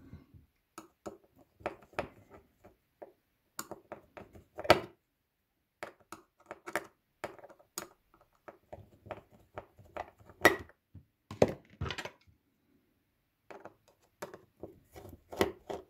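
Irregular small metallic clicks and scrapes of a screwdriver working a screw in the steel cover plate of a Hema pencil sharpener's three-jaw self-feeder chuck, with a few louder knocks among them.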